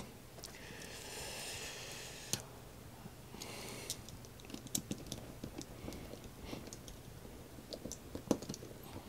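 Faint clicks, ticks and scratches of a small screwdriver and wire being worked at a screw terminal block, with two short scraping hisses in the first four seconds and a sharper click near the end.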